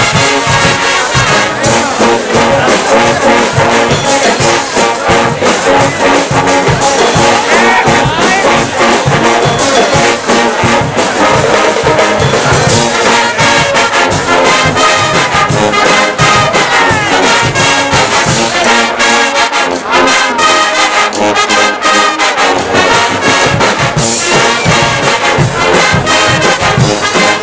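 A Guggenmusik brass band plays loudly: trumpets, trombones and sousaphones together over a steady percussion beat.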